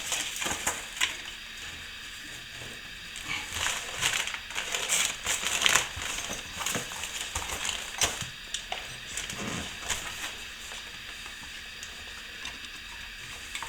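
Plastic power point being offered up and pressed against the freshly patched plaster wall: irregular scrapes, clicks and crinkles of plastic and cable, checking that the fitting will sit flat.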